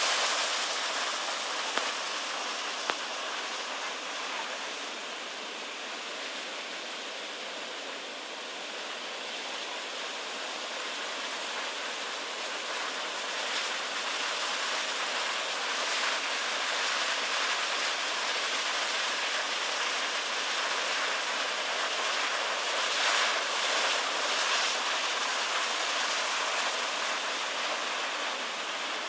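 Heavy ocean surf, breaking waves and rushing foam making a steady wash of water noise that swells a little about two-thirds of the way through.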